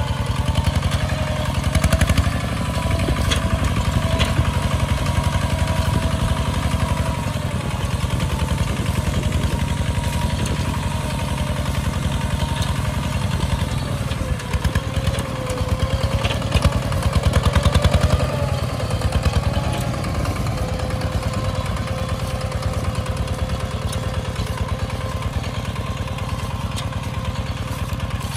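Single-cylinder diesel engine of a two-wheel walking tractor chugging steadily under load as it pulls a plough through the soil, getting a little louder around two seconds in and again near the middle.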